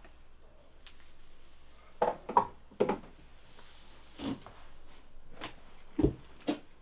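A revolver set down on a wooden table: a cluster of knocks of metal on wood about two seconds in, followed by a few more single knocks.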